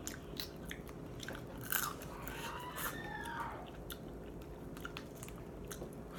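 Close-up eating sounds: a boiled crab leg shell being picked apart by hand and the meat chewed, with many scattered small clicks and crunches.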